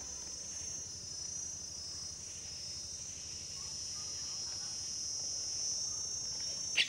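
Insects droning in a garden: one steady high-pitched hum that holds without a break.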